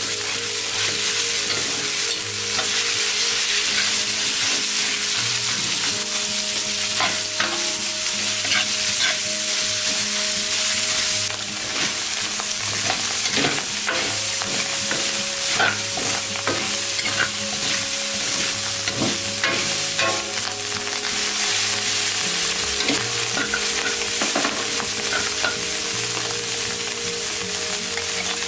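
Minced meat and garlic sizzling in hot oil in a wok, with a metal spatula scraping and clicking against the pan as it is stirred.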